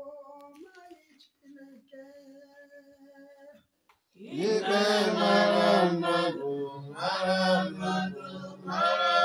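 A single voice singing slow, long-held notes softly; about four seconds in, much louder singing by more than one voice starts, with a steady low held note under a moving tune.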